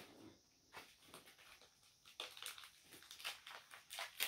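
Faint rustling and crinkling of packaging as a small parcel is unwrapped by hand: nearly quiet at first, then a quick string of short crackles from about two seconds in.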